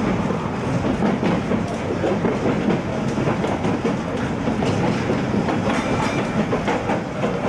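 A vintage Melbourne W2-class tram running along the track, heard from on board: steady rumble of wheels on rail with occasional clickety-clack over rail joints.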